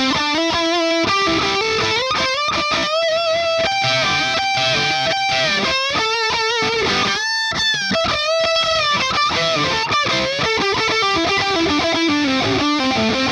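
Electric guitar played through the Boss IR-2 pedal's Soldano amp model, with a Stratocaster's bridge pickup: a distorted lead line of sustained notes shaken with vibrato, plus string bends.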